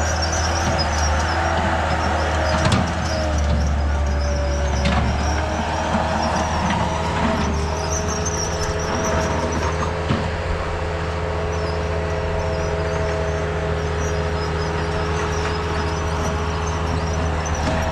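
Earthmoving machine's engine running steadily under load, with a steady whine above the engine note and a few brief clanks.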